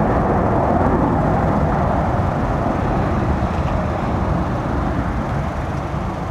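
Boeing 747-400's four jet engines running as the airliner rolls out down the runway after landing: a steady roar with no distinct events that slowly fades as the jet moves away.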